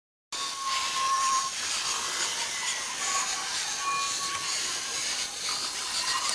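LEGO Mindstorms motors running a geared plastic rotor arm, a steady whirring rattle of spinning plastic parts and gears that starts abruptly just after the beginning.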